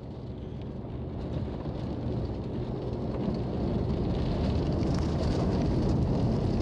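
Road and engine noise inside a moving car, growing steadily louder as the car picks up speed. Light rain ticks on the windshield while the wipers run.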